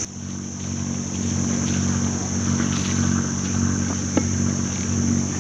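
Catamaran's engine idling steadily as the boat readies to leave the marina, under a high, steady drone of insects. A single sharp click comes about four seconds in.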